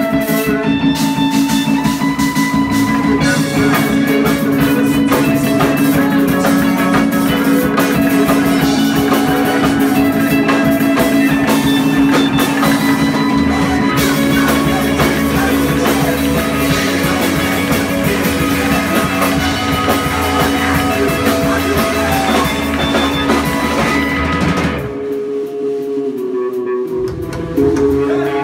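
Background rock music with drum kit and guitar. The low end and drums drop out briefly near the end, then the full band comes back in.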